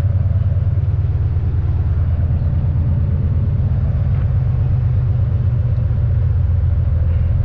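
Volvo VNL semi truck's diesel engine running steadily at low speed, a low, even drone with a fine regular pulse and no change in pitch.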